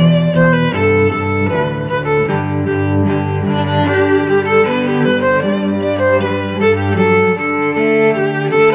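Background music of bowed strings: a violin melody over lower held notes, with the notes changing every half second or so.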